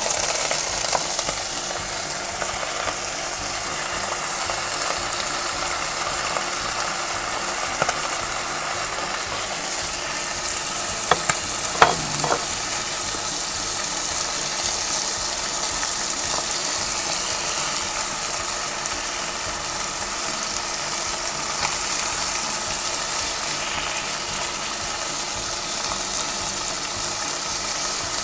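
Chicken liver, onions and mixed vegetables sizzling steadily in a hot nonstick wok, with a louder rush as the vegetables are tipped in at the start and stirring with a wooden spatula. A few sharp clicks about twelve seconds in.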